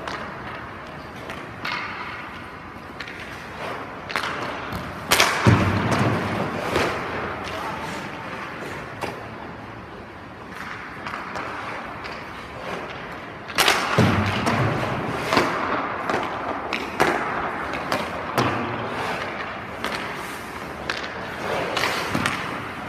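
Ice hockey goalie practice: skate blades scraping and carving the ice, with smaller stick and pad knocks and two loud, sharp puck impacts, one about five seconds in and one about fourteen seconds in.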